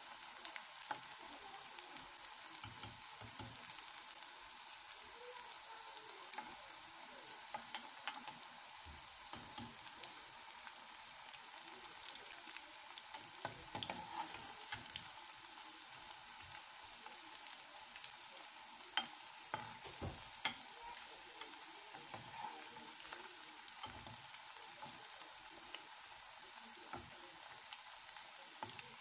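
Battered bitter gourd slices deep-frying in hot oil: a steady sizzle with scattered small pops. A slotted spoon now and then knocks and scrapes in the pan, with a few sharper knocks about two-thirds of the way through.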